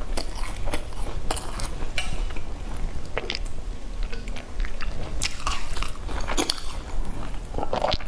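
Close-miked chewing and biting of flaky baked pastry, a run of soft crackly, crunchy mouth sounds with a short lull around the middle.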